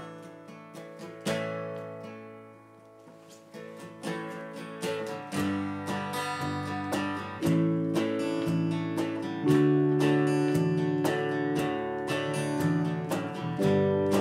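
A band playing a song's instrumental intro. An acoustic guitar strums chords alone at first. About five seconds in, low bass notes and keyboard join, and the playing grows louder.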